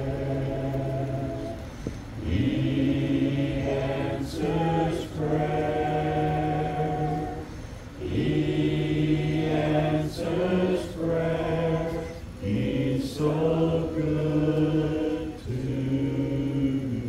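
A man singing a slow song through PA loudspeakers, holding long steady notes of a second or two, with short breaks between phrases.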